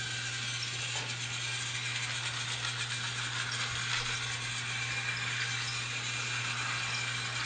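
Motorised toy train running along its track: a steady hum with rattling.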